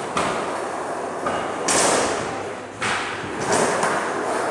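Skateboard wheels rolling over a concrete floor, with a few knocks of the board; the loudest comes about two seconds in.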